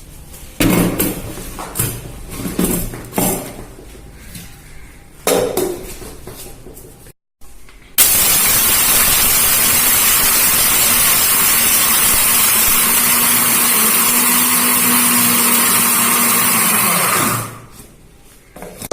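Electric mixer grinder running steadily at full speed for about nine seconds, grinding dry ginger, long pepper, black peppercorns and rock sugar into a powder, then switched off near the end. Before it, a few knocks and clatters.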